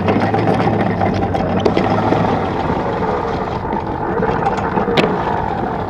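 Sailboat's anchor windlass running, with a low motor hum and the chain rattling and clicking over the gypsy as the anchor is set.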